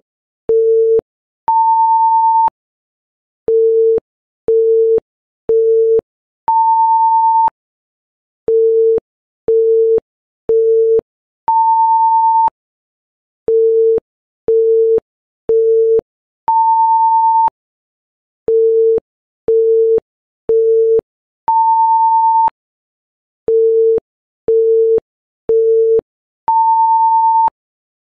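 Electronic countdown-timer beeps: three short low beeps about a second apart, then one longer, higher beep. The pattern repeats every five seconds, counting off each quiz round.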